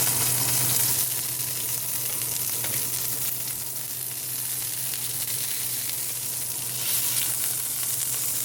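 Chicken thighs sizzling in hot olive oil in a frying pan on medium-high heat, a steady hiss with small crackles of popping grease.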